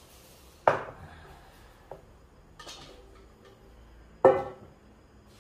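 Two sharp metallic clanks from aluminium camping cookware being handled, the first under a second in and the second about four seconds in, with a few lighter clicks and rattles between.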